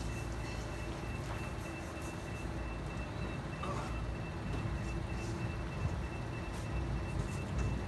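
Gas-engine pump of an airless paint sprayer running steadily, a low drone with a thin steady high whine above it. Light rustles of cardboard sheets being shifted on the ground come now and then.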